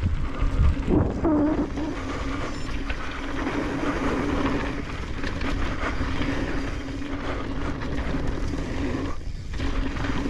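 Mountain bike rolling down a dirt trail, picked up by a chin-mounted action camera: a low rumble of tyres and wind on the microphone, with a steady buzzing hum that stops briefly near the end.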